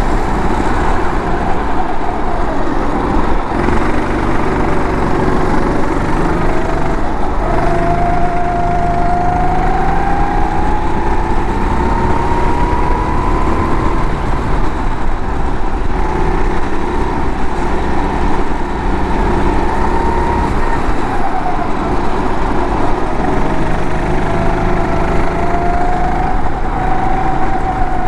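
Go-kart engine heard from on board while driving a lap, its revs climbing slowly and dropping back several times as the kart speeds up and slows.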